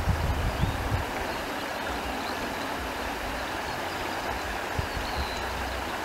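Outdoor wind blowing steadily, gusting against the microphone with low rumbles in the first second and again around five seconds in, over an even rushing hiss.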